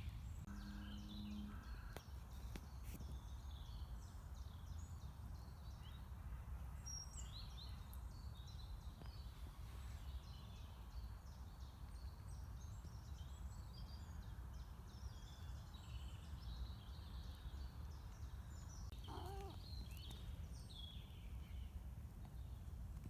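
Wild songbirds singing and chirping, many short calls and trills from several birds, over a steady low background rumble.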